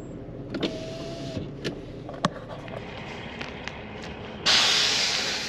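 A few light clicks and knocks, then about four and a half seconds in a sudden loud hiss of released air that fades away over a second or more, as when a diesel vehicle's parking air brake is set on stopping.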